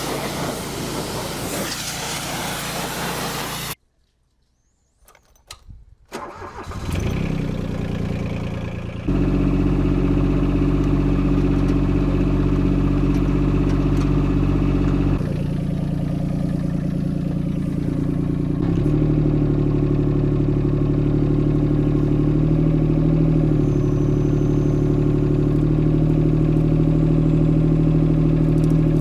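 Kobelco SK13SR mini excavator's Yanmar three-cylinder diesel running. The sound cuts off abruptly about four seconds in, then after a short near-silence with a few faint clicks the engine starts and runs steadily. Its note steps up about nine seconds in and shifts twice more later.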